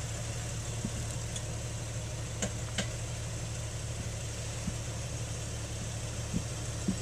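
Jeep Wrangler's engine idling steadily, with a few faint knocks of rocks being shoved into place under the front tire.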